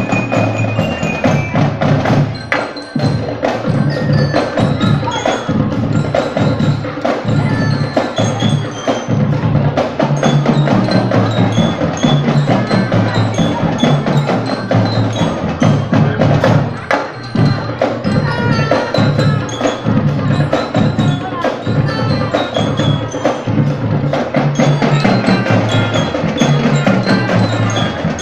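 School marching band playing: a dense, rhythmic drum pattern with ringing, bell-like mallet notes carrying a melody over it. The playing dips briefly twice, a few seconds in and about midway.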